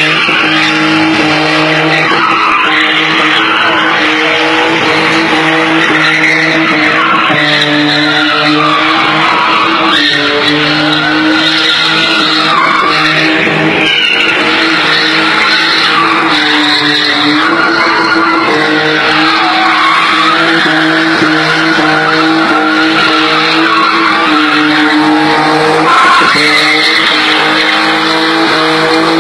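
BMW drifting with its tyres squealing loudly over a steady engine note. The squeal dips and rises in pitch every two to three seconds.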